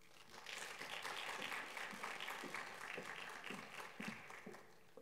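Audience applauding: many hands clapping together, starting about half a second in and dying away near the end.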